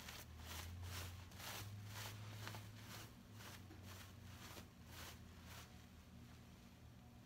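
Stiff metallic fabric of a ruffled scarf rustling and crinkling as hands fluff and adjust it. The rustles come in quick strokes about two a second and stop about five and a half seconds in.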